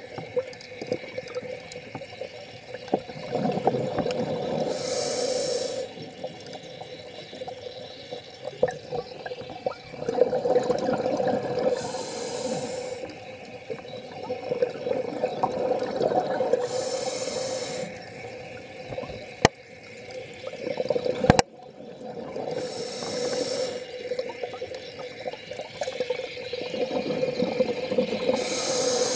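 Scuba diver's regulator breathing underwater: a short hiss with each inhalation, then the bubbling rumble of each exhalation, repeating about every six seconds. Two sharp clicks about two seconds apart, past the middle.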